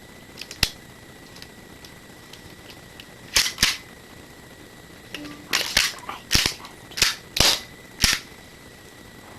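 Airsoft Glock 17 pistol being worked: about nine sharp clicks and snaps, one near the start, a quick pair a few seconds in, then six more in fairly quick succession.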